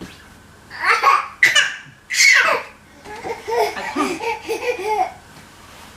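Baby laughing: a few breathy bursts in the first two seconds, then a run of short, high-pitched chuckles.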